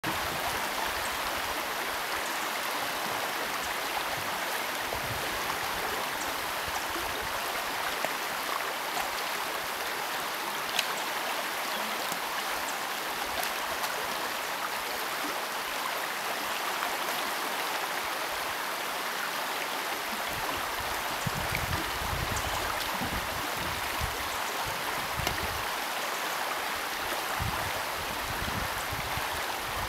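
Steady rush of a shallow river flowing past a cobble bank. A low rumble comes and goes from about two-thirds of the way in.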